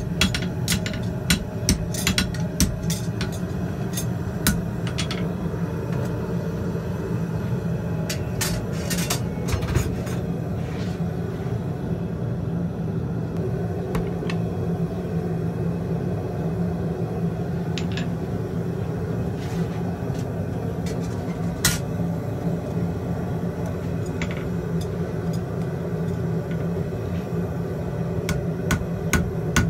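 Farrier's hammer striking a horseshoe on an anvil, ringing blows in quick runs at the start and again near the end, with a few scattered clinks in between, over the steady low roar of a gas forge running.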